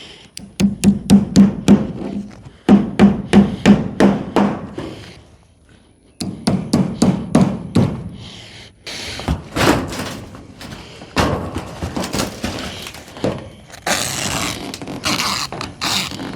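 Hammer driving nails into wood, in three quick runs of sharp blows, about four or five a second, in the first eight seconds, followed by scattered knocks and rustling.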